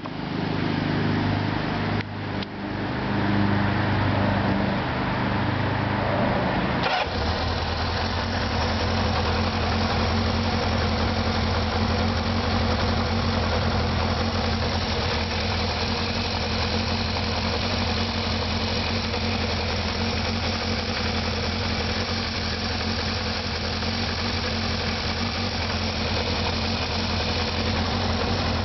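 Kawasaki KZ650's air-cooled inline-four engine running with its carburettors hooked to vacuum gauges for synchronizing. It runs faster for about the first seven seconds, dipping briefly twice, then drops suddenly to a steady idle around 1000 rpm.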